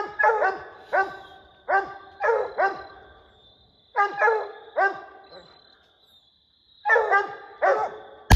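Coonhound barking at a raccoon treed overhead, in quick groups of barks with short pauses between them. Right at the end comes a single gunshot followed by an echo.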